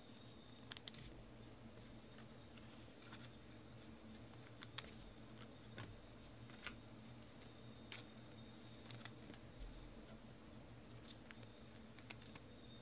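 Near silence with a few faint, sharp clicks and taps, some in pairs, from trading cards and packs being handled at the table.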